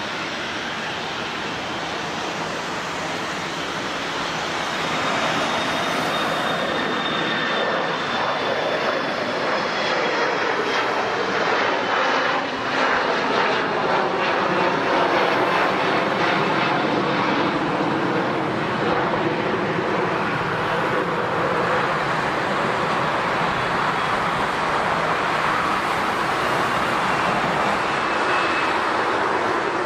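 Jet airliner's engines as the plane passes by. A high whine slides slowly down in pitch over a rushing roar, which grows from about four seconds in to its loudest around the middle and stays strong to the end.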